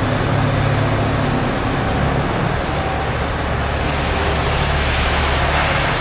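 Steady factory-floor background noise from the shop's running machinery and ventilation: an even roar with a low hum underneath.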